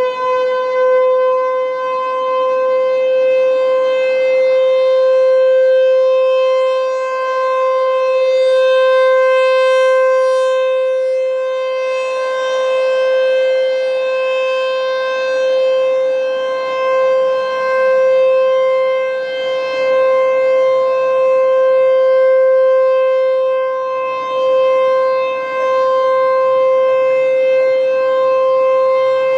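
ASC T-128 rotating outdoor tornado warning siren sounding its steady alert tone, held at one pitch after winding up to full speed. The sound swells and fades every several seconds as the rotating siren head turns toward and away.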